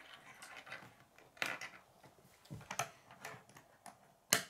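K'nex plastic pieces being handled and fitted together on a wooden tabletop: a series of light clicks and knocks, with a sharper click near the end the loudest.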